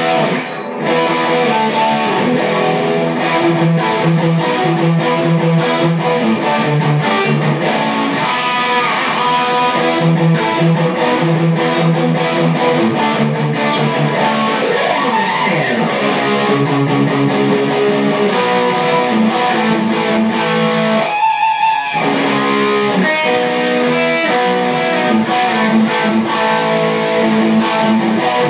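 Electric guitar played loosely and freely through a Peavey amplifier head and Mesa speaker cabinet: sustained notes and chords with a few sliding pitch bends, and a brief break about three-quarters of the way through.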